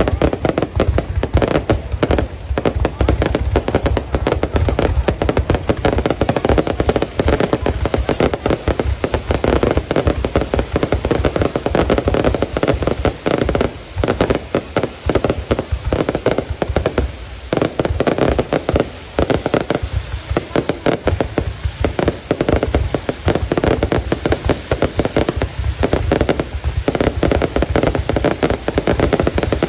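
Aerial fireworks display in a continuous rapid barrage of bangs and crackling shell bursts, with a few brief lulls.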